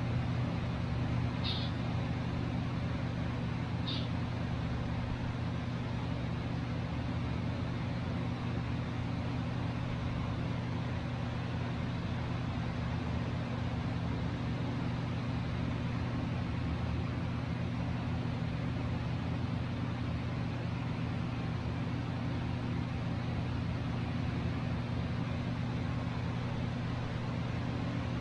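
A steady low mechanical hum throughout, with two short high chirps from pet birds about one and a half and four seconds in.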